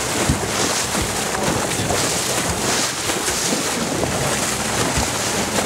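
Water splashing and churning against the boat's hull as a hooked blue marlin thrashes at the surface, with wind rumbling on the microphone in a few low thumps.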